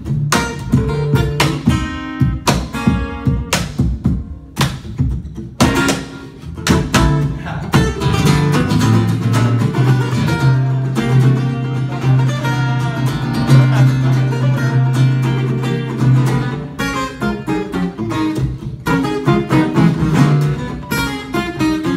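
Two acoustic guitars playing a lively duet: fast strummed chords with sharp percussive hits, easing into a stretch of held low notes in the middle before the percussive strumming returns near the end.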